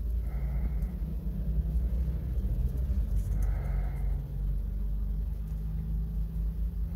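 A low, steady motor rumble with a hum in it, like an engine running.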